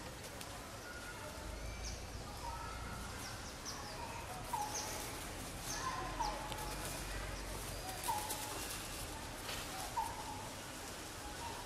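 Birds calling in short chirps, a new call every second or two, over a steady outdoor background hiss.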